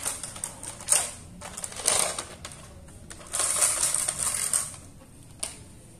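Hard plastic toy parts clicking and scraping as a Playmobil police boat is pushed and fitted onto its trailer: several sharp clicks in the first two seconds, a longer scraping stretch past halfway, and one more click near the end.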